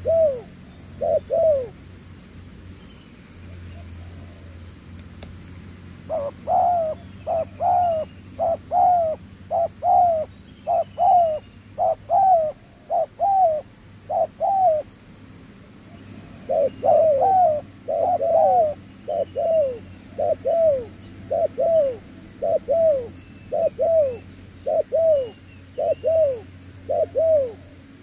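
Spotted dove cooing in long runs of short, falling coos, about one and a half a second, with brief pauses between runs.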